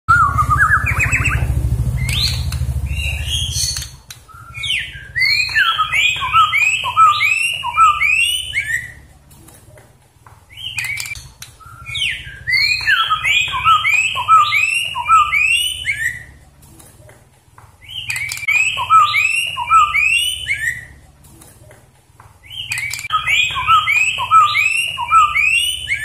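Caged white-rumped shama singing in four bouts of quick, clear whistled notes separated by short pauses, a song the uploader hears as 'Jokowi, Jokowi'. A low rumble with some rising notes fills the first few seconds.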